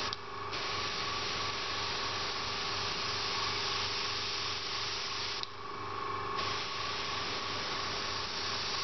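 Airbrush hissing as it sprays paint with air at about 1 bar (15 psi). The hiss stops twice, briefly just after the start and for about a second some five and a half seconds in, while the airbrush compressor's steady hum carries on underneath.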